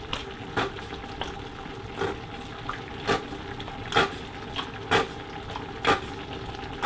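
Plastic squeeze bottle of tomato ketchup spluttering as it is squeezed into a cooking pot: a run of short squirts, roughly one a second, over the steady hiss of the pot cooking.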